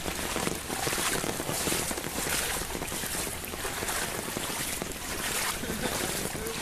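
Heavy rain pouring down in a steady hiss that surges and eases, with wind noise on the microphone.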